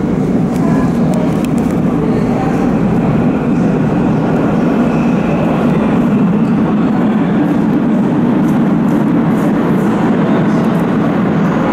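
Athens Metro train running in the tunnel: a steady low rumble that neither rises nor fades.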